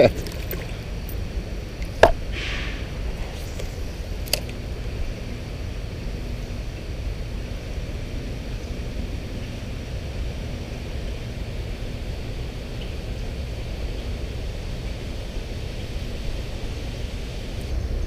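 Shallow river water running steadily over a rocky riffle, with a low rumble underneath. A sharp click about two seconds in and a fainter one about four seconds in.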